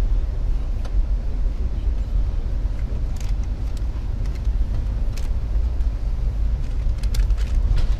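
Steady low rumble of a moving passenger train, with a few faint clicks here and there.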